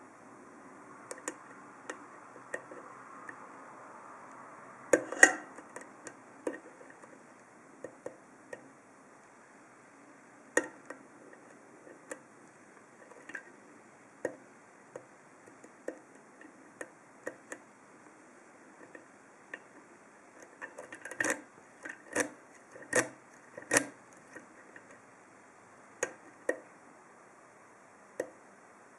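Hook pick and tension wrench working the pins of a Best 7-pin interchangeable-core padlock during single-pin picking: scattered light metallic clicks and ticks at irregular intervals. A brief cluster of louder clicks comes about five seconds in, and a run of four louder ones about three-quarters of the way through.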